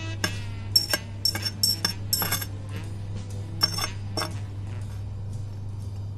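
Steel tweezers tapping and clinking against a stainless steel tray: a quick, irregular run of sharp metallic taps with a ringing tone over the first four seconds, then fewer, over a steady low hum.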